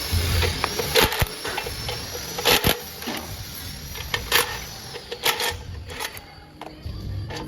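Irregular metallic clinks and knocks from hand work with tools on a grass chopper's blades, about a dozen strokes spaced unevenly.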